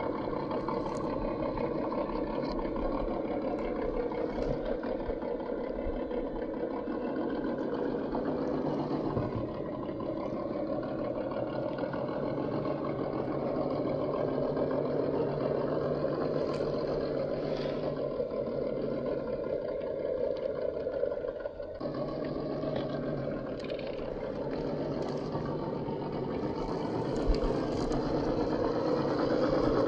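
RGT EX86190 1:10-scale RC crawler's electric motor and geared drivetrain running as the truck crawls over dirt, a steady mechanical drone with a short break about two-thirds of the way through.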